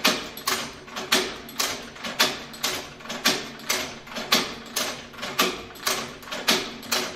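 Hand-operated leather stitching machine sewing in a steady rhythm of about two stitch strokes a second, each a sharp mechanical clack with a short rattle after it. The stitching stops abruptly near the end.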